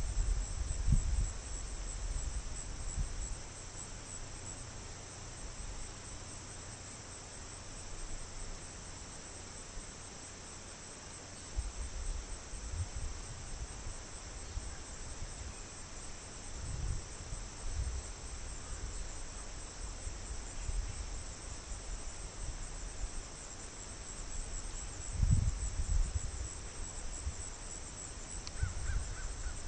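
Steady high-pitched chorus of insects trilling, picked up by a trail camera's microphone, with irregular low rumbles that are loudest near the start and about 25 seconds in.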